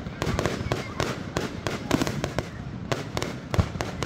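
Aerial fireworks going off in quick, irregular succession: sharp bangs and crackles, several a second, with a deeper boom about three and a half seconds in.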